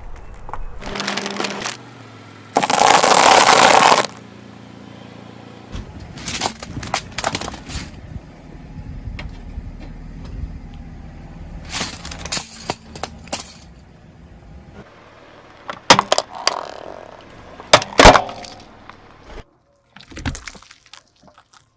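Objects cracking and breaking as a car tire rolls over and crushes them, with many sharp separate cracks. About three seconds in there is a loud noisy burst lasting just over a second.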